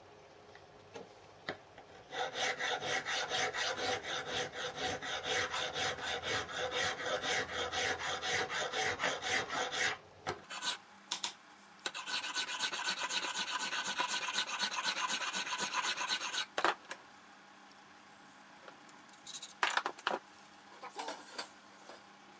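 A hand file rasps across a small metal key clamped in a vise, in rapid repeated strokes. There are two runs of filing, the first about eight seconds long and the second about four and a half, then a few light clicks near the end. The key is being filed down to size for a gib.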